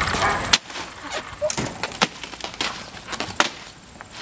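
Ice cubes clinking and knocking in a plastic bucket as a child's hand scoops through the ice water: a handful of separate sharp clicks spread across a few seconds. Background chatter is heard in the first half-second.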